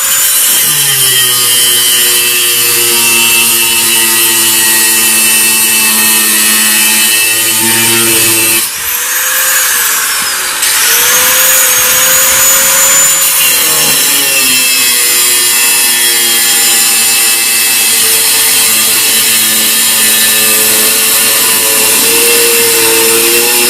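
Angle grinder cutting down the protruding steel wheel bolts on a hub, its motor whining steadily under load. About nine seconds in the whine sags and drops briefly, then climbs back and runs on.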